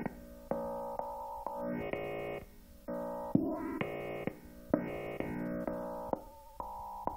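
Yamaha TX7 FM tone generator sounding a string of short test notes, a new one roughly every half second to second, each with a different timbre and a click at its onset. These are candidate patches auditioned one after another as software evolves a sound on the synth.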